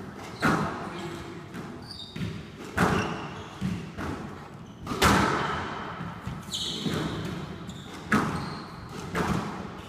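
Squash ball struck by rackets and smacking off the court walls in a rally, a sharp hit every second or two, each echoing briefly around the court. A short squeak of a shoe on the wooden floor about six and a half seconds in.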